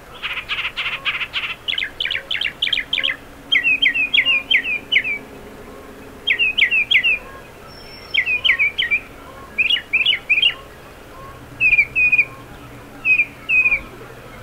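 Songbirds singing: a quick run of notes at the start, then one bird repeating short groups of three to five down-slurred notes every second or two, with a softer lower note repeating underneath.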